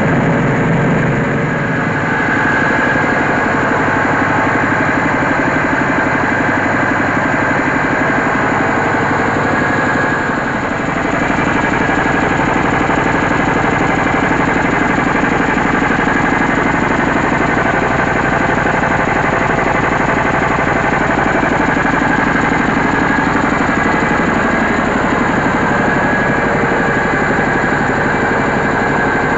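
Diesel engine of a mobile rice mill running steadily under load, with a fast even pulse and a steady whine from the milling machinery. A brief dip about ten seconds in, after which the low hum grows heavier.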